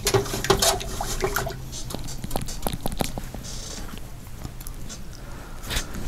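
A paintbrush being handled: light clicks and taps with soft wet squishing, then a brief hiss a little past the middle.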